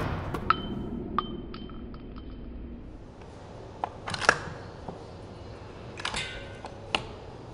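A series of sharp metallic clicks and clinks. Several come in the first two seconds with a thin ringing tone hanging under them, then a couple around four seconds in and a cluster between six and seven seconds in.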